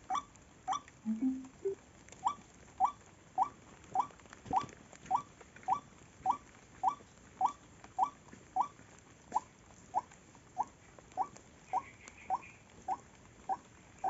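White-breasted waterhen (ruak-ruak) calling: a short, rising note repeated steadily, about two a second.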